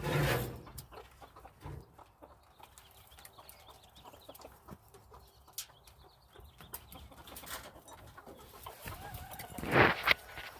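A chicken clucking, with scattered small clicks and rustles. There is a louder burst right at the start and another about ten seconds in.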